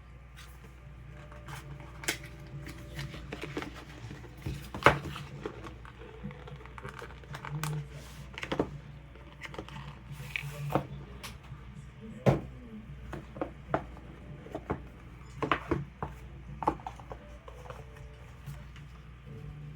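Irregular clicks, taps and knocks of hands handling a product and its packaging during an unboxing, with a few louder knocks about five seconds in, about twelve seconds in, and around fifteen to sixteen seconds in.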